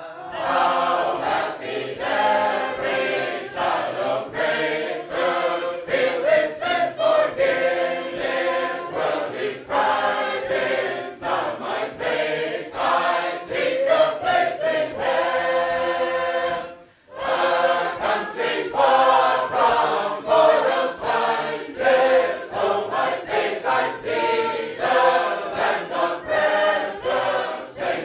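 A group of Sacred Harp shape-note singers singing a hymn tune a cappella in parts, full and loud. The singing breaks off briefly about 17 seconds in, then they sing on.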